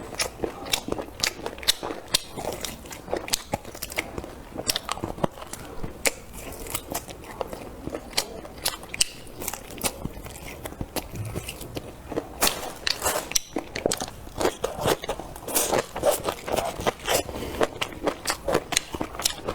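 A person eating close to the microphone: bites and chewing with many short crunchy clicks, coming thicker in the second half.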